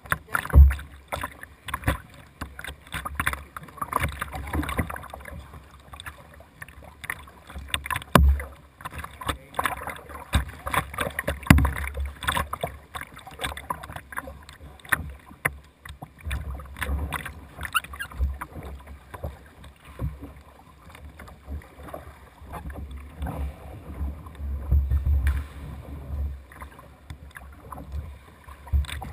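Double-bladed kayak paddle stroking through pool water, the blades splashing on alternate sides, with water lapping close at the bow of a plastic whitewater kayak and irregular low thumps.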